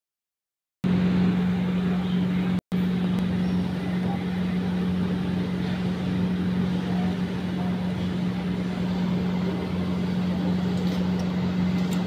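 A steady low machine hum at one constant pitch, with a brief cut-out near the start.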